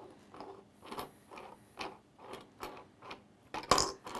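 3D-printed plastic coin sorter's dial being turned by hand: a run of light clicks, a few a second, as it drags coins across the slotted plate. About three and a half seconds in, a louder clink as a coin drops into its tube.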